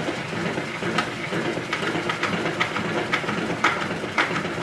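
A hand-worked salad spinner spinning, a steady whir with a rhythmic clatter, as it spins the water out of freshly washed lettuce.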